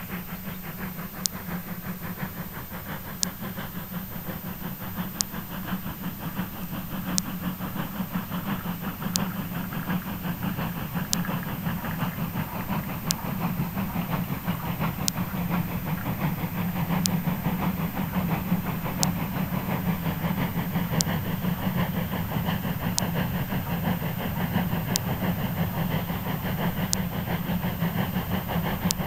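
Steam locomotive working hard up a steep 1 in 49 gradient, its rapid, even exhaust beats slowly growing louder as it approaches.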